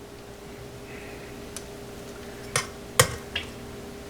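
A spoon clinking a few times against a pan while scooping thick cookie mixture, the clicks coming in the second half, over a steady low hum.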